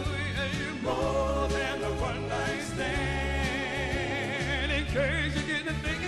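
Live soul music: a vocal group singing with vibrato over a band with a steady bass line.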